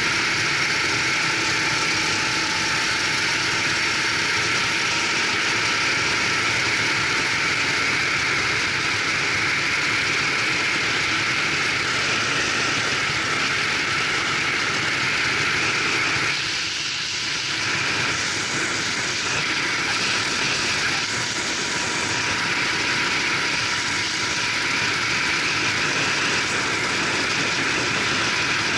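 Go-kart engine running on track at speed, heard from the kart's onboard camera, mixed with a steady rush of wind noise; the level dips briefly a little past halfway.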